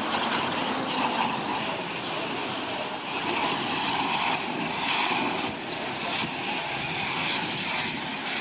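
Hollow-jet fire hose nozzle spraying a wide water fog at full flow: a steady rushing hiss.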